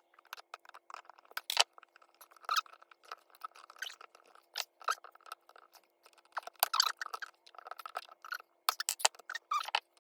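Irregular clicks, taps and light rattles of hand tools and small parts being handled, over a faint steady hum.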